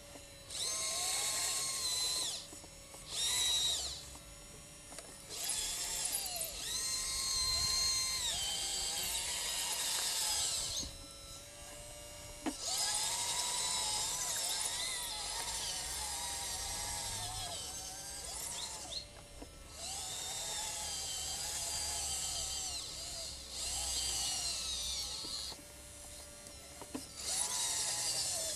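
Remote-controlled scale model Liebherr LR 632 crawler loader with Leimbach hydraulics: its electric motors whine in bursts of a few seconds, pitch rising and falling as it drives and works its bucket in the soil, over a fainter steady hum.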